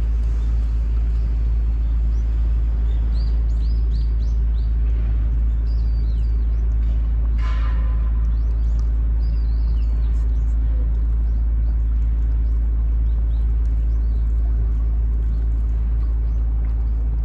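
A steady low rumble with a machine-like hum underneath, and small birds chirping now and then, with one louder short call about seven and a half seconds in.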